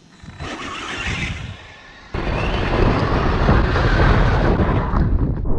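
Arrma Senton RC truck with a 6S brushless motor skimming across flood water, heard through a camera mounted on the truck: a loud rushing of wind and water spray over a low rumble, starting abruptly about two seconds in.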